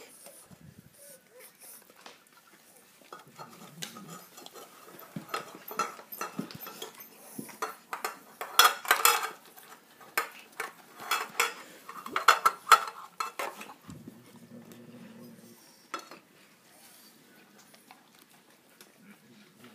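Cat eating from a food bowl: quick runs of clicks and clinks of food and bowl, loudest about halfway through, then dying away.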